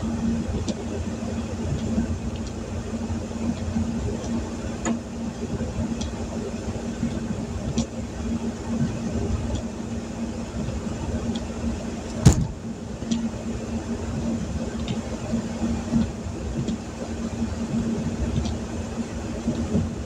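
A steady low mechanical hum under rain tapping on the vehicle's windshield and body, with a sharp click about twelve seconds in.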